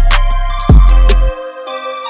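Background electronic music beat with a deep kick drum whose pitch falls on each hit. About two-thirds in the drums and bass drop out, leaving a held higher synth chord.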